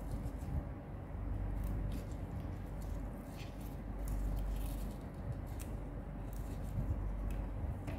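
Arugula (gergir) leaves and stems being picked over by hand in a plastic basin: scattered soft rustles and small snaps every second or so, over a steady low hum.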